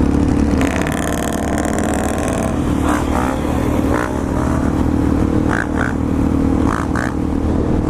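Single-cylinder motorcycle engine running steadily while riding, with a brief stretch of revving about a second in.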